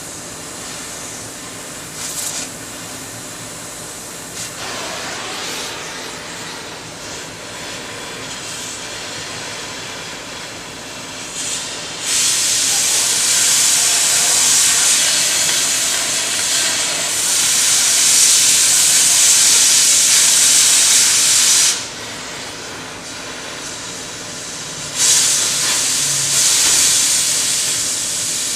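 Cutting through a steel link of a mixer wagon's conveyor chain: a loud, even, hissing cut of about ten seconds starting near the middle, then a shorter cut of about three seconds near the end.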